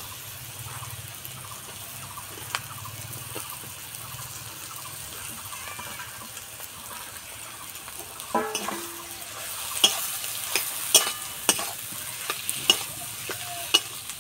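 Mashed potato and onion-spice masala frying in a kadai with a steady sizzle. From about eight seconds in, a metal spatula stirs the mixture, scraping and clacking repeatedly against the pan.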